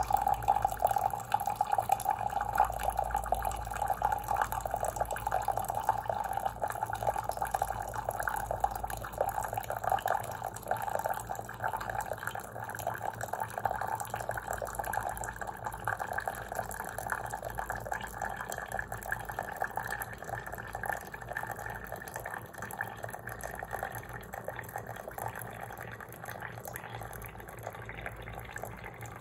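Mainstays single-serve coffee maker dispensing very hot water into a mug on a water-only brew cycle: a steady, spattering stream over a low hum from the machine, slowly growing quieter toward the end.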